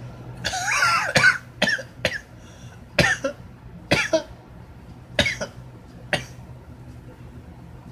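A man coughing in a fit of about seven harsh coughs over some six seconds. The first is drawn out and rough, and the rest are short and spaced about a second apart.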